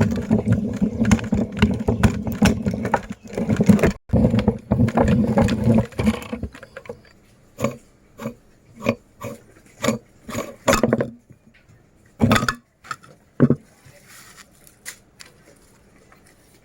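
Meat grinder crushing hard-candy lollipops: a dense grinding crunch for about the first six seconds, then it thins out to scattered single cracks and clicks.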